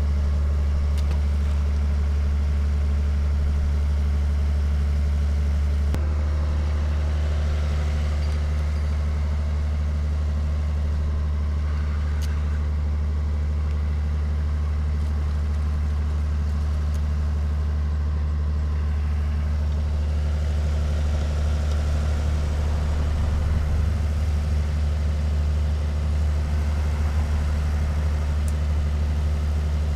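A steady, deep engine drone, like a motor running at idle, going on without a break and without changes in pitch.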